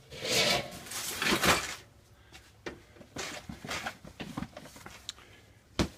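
Objects being shifted and handled: a rustling scrape for about a second and a half, then scattered light clicks and one sharp knock near the end.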